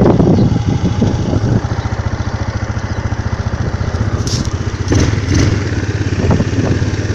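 A 400 ATV engine, just started, runs louder for about the first second and a half, then settles into a steady, even idle. A few sharp knocks sound around the middle.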